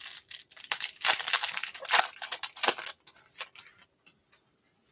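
Foil wrapper of a trading-card pack being torn open and crumpled by hand: quick, irregular crackling for about three seconds, then a few faint ticks as the cards are handled.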